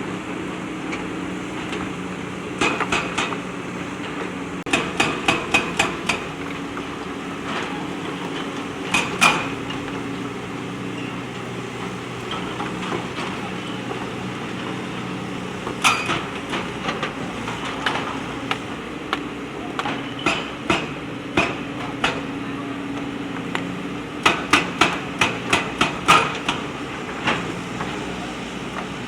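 Backhoe loader's diesel engine running steadily under several short runs of sharp metallic clanks and knocks, about four a second, as the bucket works against stones and rock.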